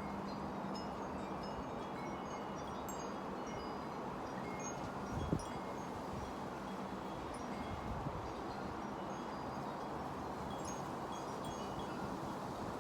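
Wind chimes ringing in the wind: short, clear high notes at irregular times over a steady rush of wind, with one dull knock about five seconds in.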